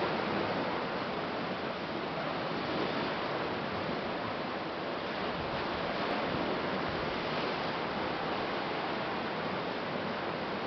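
Ocean surf washing against black lava rocks below, a steady rushing wash with no distinct breaks.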